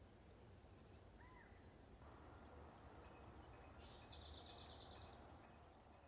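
Faint small songbird calls over a low background rumble: a single arched whistled note, two short high notes, then a quick high trill lasting about a second.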